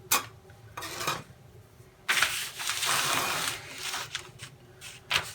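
Handling noises from model rocket parts on a work surface: a sharp click at the start, a longer rustle about two seconds in, and a few more clicks and knocks near the end.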